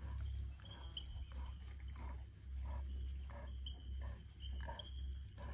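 Lions close by making a run of short, repeated sounds, about two a second, over a steady low hum.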